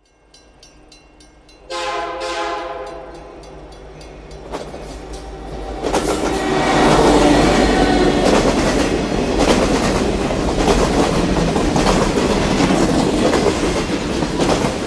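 A train sounds its horn, then rumbles past with its wheels clattering, growing loud about six seconds in and staying loud.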